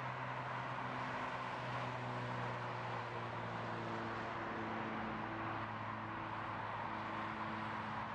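Steady hum of nearby road traffic, a constant rush of tyre noise with engine tones drifting in and out.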